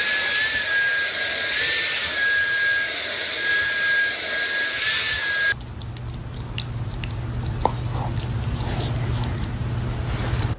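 A small motor whining steadily with a high hiss, like a power tool. About halfway through it cuts off suddenly, giving way to a low hum with scattered clicks.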